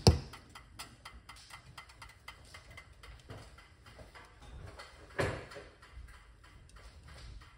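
A stainless steel saucepan of hot tea set down on a glass induction hob with a sharp clunk at the very start. Then faint, irregular ticks and clicks come as it sits steaming, with one brief louder noise about five seconds in.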